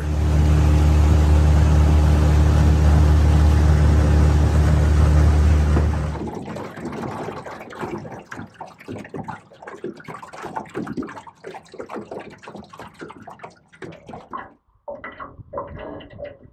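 Small outboard motor on an aluminium rental boat running at a steady pitch, ending about six seconds in. Then water lapping and splashing in small irregular slaps against the aluminium hull.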